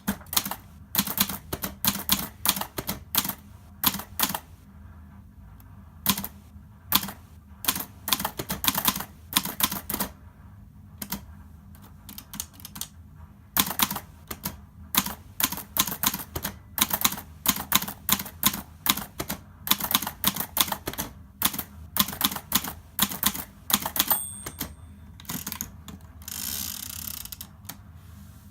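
Hermes Baby portable manual typewriter being typed on: sharp key strikes in irregular runs with short pauses between them. Near the end a brief high ring sounds, then about a second of sliding, rasping noise.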